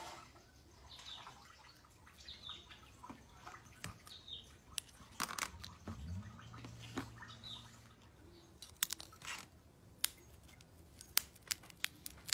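Cracked phone screen glass crunching and crackling as a shattered iPhone front panel is handled and pried apart. Sharp small clicks of glass fragments, parts and tweezers come in the second half.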